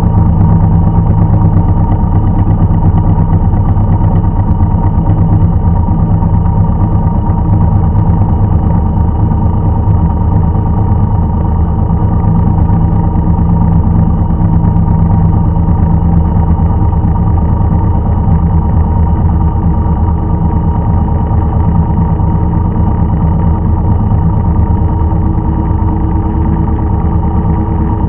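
A farm machine's engine running steadily at an even speed, with no revving or change in pitch.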